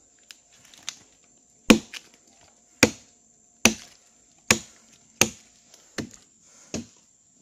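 Axe chopping into a felled tree trunk: a few light knocks, then about seven heavy strokes roughly one every 0.8 s, starting a little under two seconds in.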